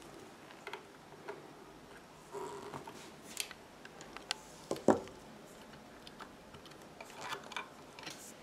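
Scattered small metallic clicks and taps of hand tools working at the needle and hook of a Pfaff 1245 industrial sewing machine, with one sharper knock about five seconds in.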